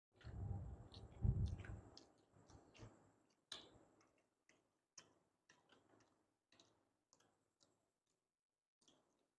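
Faint close-up eating sounds. The first two seconds hold a louder stretch of mouth and food noise, then soft clicks and smacks come about twice a second, growing sparser near the end.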